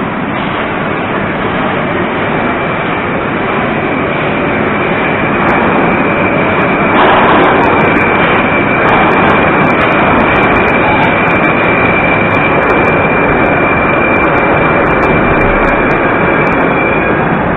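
Moscow metro train pulling into the station: loud noise of the train on the rails, growing louder as it enters, with a steady high whine that cuts off near the end.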